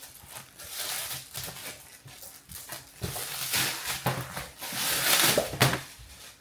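Plastic and paper packaging rustling and crinkling as a kuji prize is unwrapped, in several swells that grow louder past the middle.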